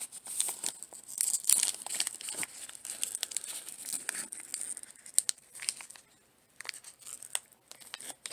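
Wrapper of a Diamond Kings baseball card pack being torn open and crinkled, followed from about halfway by scattered sharp clicks and ticks as the stack of cards is handled.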